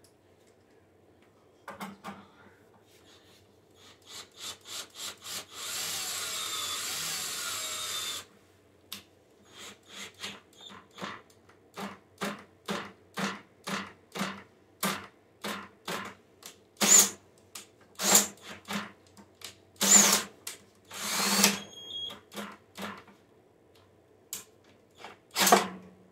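Cordless drill with a 10 mm socket driving bolts back into a mower's top cover. It makes one steady run of about two seconds, then a long string of short quick spurts, about two a second, and a few louder brief whirs near the end.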